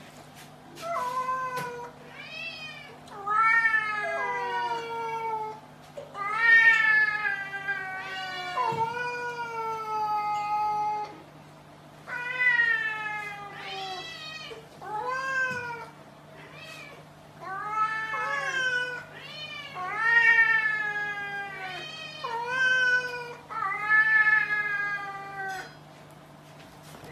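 Cat yowling over and over in a standoff with another cat: about a dozen long, drawn-out threat calls, each rising and then sliding down in pitch, with short pauses between them.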